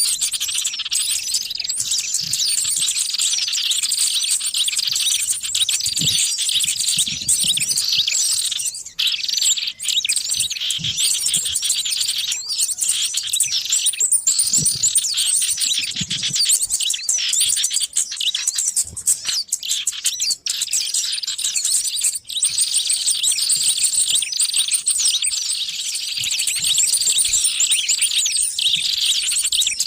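Many small songbirds chirping and twittering at once in a dense, unbroken chorus of short high calls and trills: a lure recording of small wild birds calling excitedly, played to draw other small birds in.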